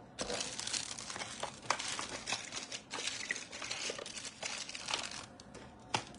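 Crinkling and rustling as small items are handled and put away, with scattered clicks. It stops about five seconds in.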